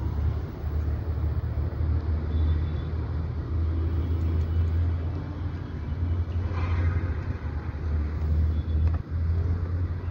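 Wind buffeting the phone's microphone: a steady, uneven low rumble with nothing else clear above it.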